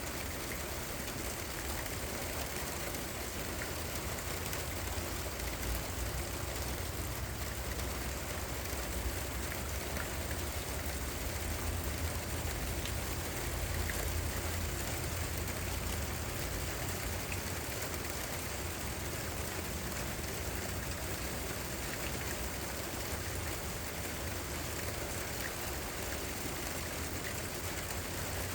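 Steady rain falling, an even hiss with a few faint drop ticks, over a constant low rumble.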